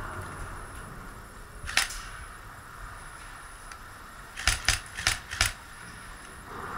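Airsoft guns firing: one sharp shot about two seconds in, then four quick shots a little under three seconds later, over a steady low hiss.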